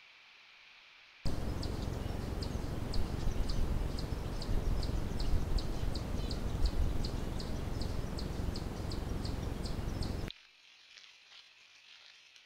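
Cricket chirping in a steady rhythm, about two to three short high chirps a second, over a loud, steady low rumbling noise. Both start abruptly about a second in and cut off abruptly near the end.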